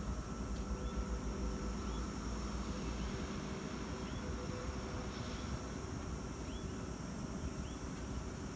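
Distant diesel-hauled freight train running, a steady low rumble with a faint engine drone. A faint short high chirp repeats about once a second.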